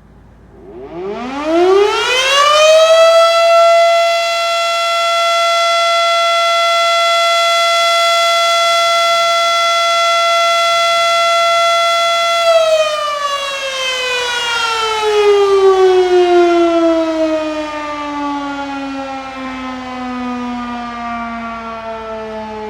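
Federal Signal Model 7 outdoor warning siren sounding its daily test: it winds up quickly about a second in to a loud steady tone, holds it for about ten seconds, then winds down, its pitch falling slowly.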